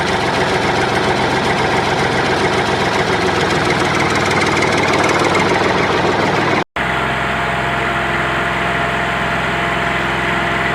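An engine running at idle with a fast, even rhythm, broken off for a moment about two-thirds of the way through and then carrying on.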